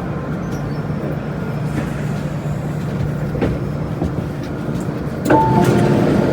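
MTR Island Line train at a station platform, a steady low hum with some clatter. About five seconds in it gets louder and a steady two-tone sound starts.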